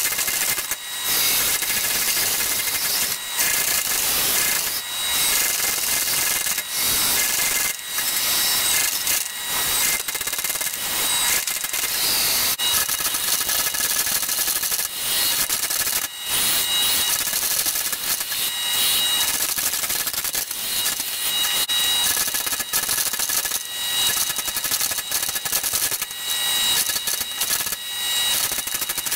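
Power hammer striking hot steel in fast, continuous blows, with steady high-pitched tones from the machine running under them.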